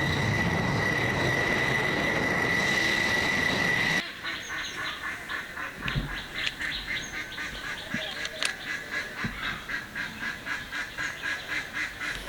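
Fighter jet engine sound: a steady jet rush with a high whine that cuts off suddenly about four seconds in. It is followed by a quieter run of short repeated pulses, a couple a second.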